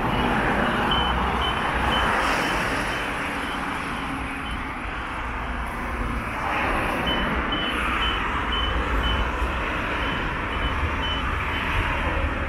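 Street traffic and a Bursa T1 tram pulling into the stop and standing at the platform, with a car passing about six seconds in. A series of short high beeps, about two a second, runs through it with a pause in the middle.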